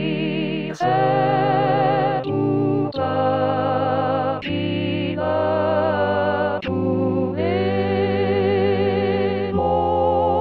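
Four-part hymn harmony played back as sustained, organ-like chords with a slight vibrato. The chords move in step with the notes of the score and change every second or two, with short breaks between notes.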